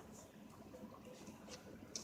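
Near silence: faint background hum with two faint clicks, one about halfway through and one near the end.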